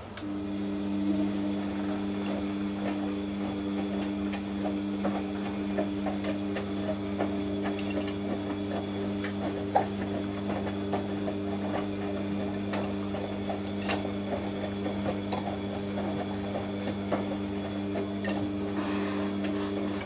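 Front-loading washing machine running its wash cycle: the drum motor hums steadily while the laundry tumbles with irregular clicks and knocks. The hum comes in suddenly as the drum starts turning.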